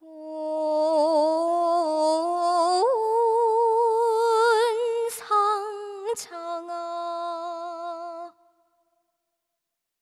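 A woman's voice singing long, wordless held notes with a wide vibrato. The pitch steps up about three seconds in and drops back around six seconds, with two sharp breaks in between. The voice stops a little after eight seconds.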